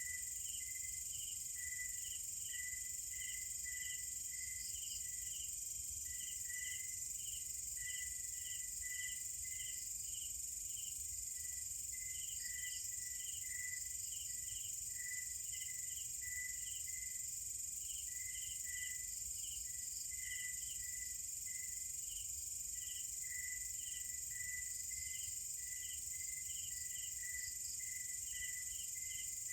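Chorus of night insects: a steady, high-pitched insect drone with many short chirps repeating over it, crickets among them.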